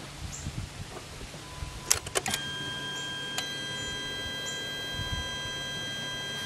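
Several sharp relay clicks about two seconds in as the Jeep Grand Cherokee CRD's ignition is switched on, with another click a second later. Then a steady high-pitched electrical whine holds while the glow plugs draw about 180 amps.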